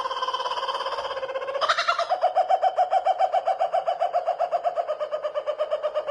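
Horror meme ghost sound effect: a high voice trembling in a fast, even pulse. It steps up in pitch and grows louder about two seconds in, then fades out near the end.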